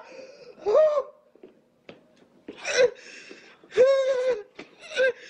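A woman crying out in anguish, with four loud, wailing cries about a second or so apart, the third held longest, and quieter sobbing between them.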